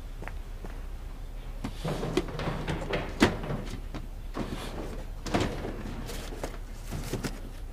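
Cardboard boxes being shifted and knocked about on wooden storage shelves during a search: an irregular run of knocks and scrapes, the loudest knock about three seconds in.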